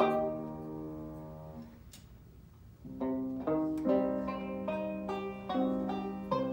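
Banjo and grand piano duet: a chord rings and fades out, there is a brief pause, and the two instruments pick the tune back up about three seconds in.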